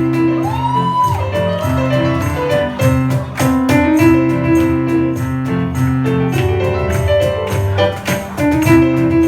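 A Bollywood retro medley playing loudly over the sound system, with held melodic notes over a steady beat.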